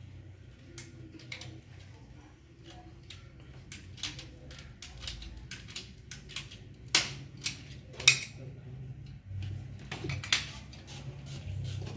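Scattered metallic clinks and knocks of hand tools being handled and struck during plumbing work on a pipe fitting, with a few sharper knocks in the second half. A low steady hum runs underneath.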